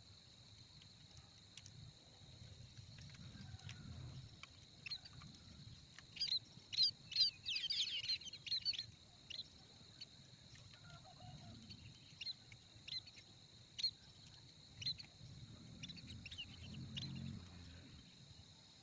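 Small birds chirping: a quick run of chirps about six seconds in, then scattered single chirps, over a steady high-pitched whine.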